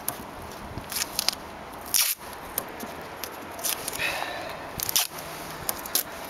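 Masking tape being pulled off the roll and torn into strips: irregular crackling and short ripping sounds, the loudest rip about two seconds in.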